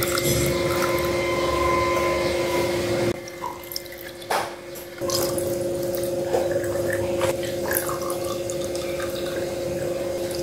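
Milky green tea drink poured from a plastic jug into glass jars over cubes of cincau jelly: a steady pouring stream. It breaks off about three seconds in and starts again about two seconds later.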